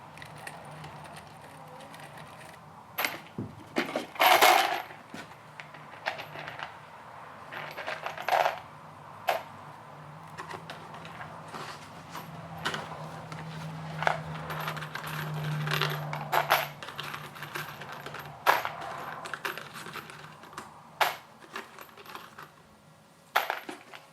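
Steel Tapcon concrete screws clinking and clattering as they are handled and dropped into a plastic Packout organizer bin, in irregular bursts with the loudest clatter about four seconds in. A faint steady low hum runs underneath.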